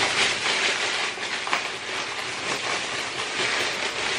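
Thin clear plastic produce bag crinkling and rustling as it is handled and pulled open.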